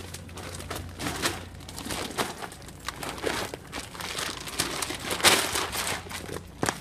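Large dog food bags being grabbed off a shelf and handled, crinkling and rustling in irregular bursts, the loudest crunch a little after five seconds in as they end up on the floor.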